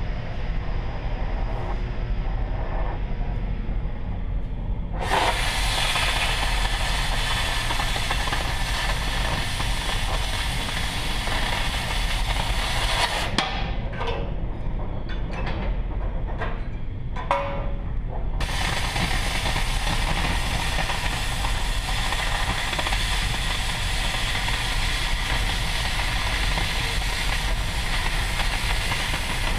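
Oxyacetylene cutting torch hissing steadily over a low rumble. About five seconds in it jumps to a louder, harsher full hiss, as when the torch is cutting steel plate. That hiss drops back for a few seconds in the middle, with a few light knocks, then returns.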